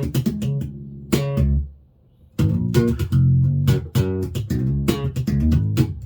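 Five-string electric mini bass played through a small Warwick BC10 bass combo amp: a quick run of plucked notes, a short stop about two seconds in, then a further busy line of notes.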